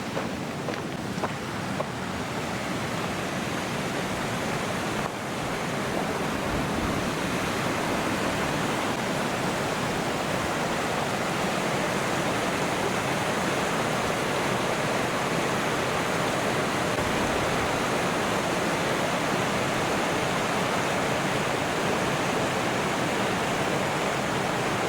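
Kings Creek Falls: a steady rush of water pouring down the falls, growing a little louder about five seconds in.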